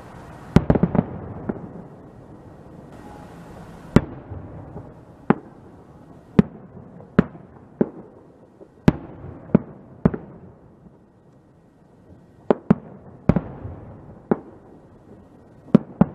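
Aerial firework shells bursting: a string of sharp bangs at irregular intervals, a quick cluster of several about half a second in, then single bangs a second or so apart, with a low rumble between them.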